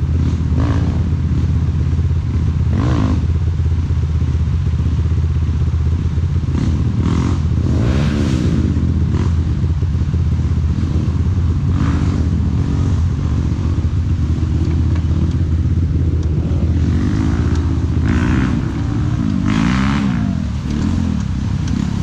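Off-road trail motorcycle engine running and revving, its pitch rising and falling again and again as it works over rough ground, with a few brief clattering noises.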